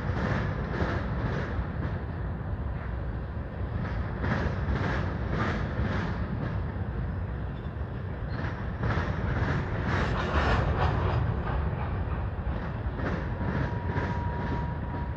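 Long BNSF freight train rolling past: a steady rumble of rail cars with sharp wheel clicks about twice a second, coming in groups. A thin steady high squeal joins near the end.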